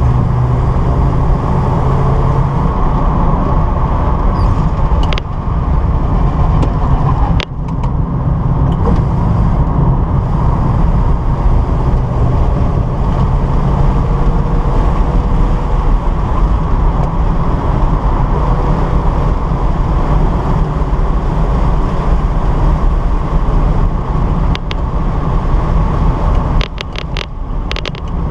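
A 1972 Datsun 240Z's inline-six engine running hard on a track lap, heard from inside the cabin with wind and tyre noise. The level dips sharply about a quarter of the way in and again near the end, where a few sharp clicks come through.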